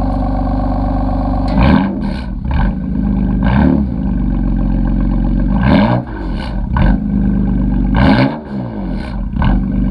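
BMW M3 engine with an M Performance exhaust idling, then revved in a series of throttle blips starting about one and a half seconds in. Each blip rises sharply and drops back toward idle; four big ones come roughly two seconds apart, with smaller ones between.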